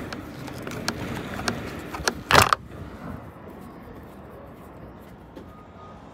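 Clicks and light rattling from prying at the plastic end cover of a 2008 Jeep Grand Cherokee WK's OEM roof rack, with one short loud scrape about two and a half seconds in.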